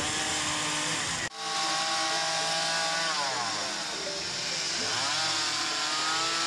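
Chainsaw running while carving wood: a sharp break about a second in, then the saw's engine pitch slides down, dips and climbs back up as the throttle is eased off and opened again.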